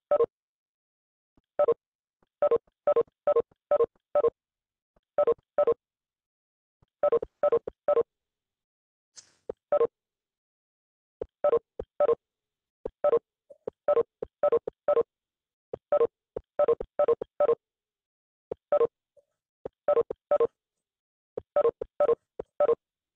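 Video-call notification beeps: short identical electronic pips in irregular clusters of two to five, the alert that participants are leaving the call.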